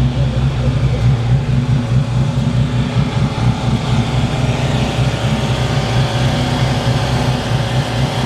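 Car driving, with a steady low drone of engine and road noise.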